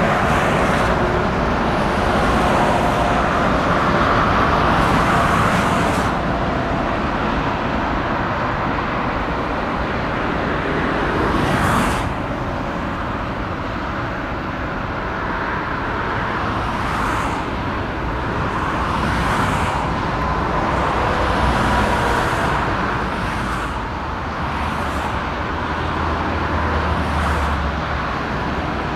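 Boeing 747-8 Freighter's four GEnx-2B turbofans at climb power, a loud steady jet roar with a faint whine. It fades slowly as the aircraft climbs away, and a deep rumble comes up in the last few seconds.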